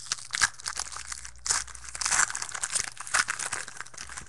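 Wrapper of a baseball card pack crinkling and being torn open, a dense run of quick rustles and rips, loudest about one and a half to two seconds in.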